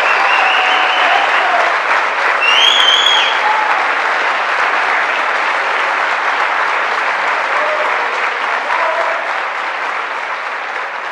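Audience applauding, the clapping slowly dying down, with a short shrill whistle over it about three seconds in.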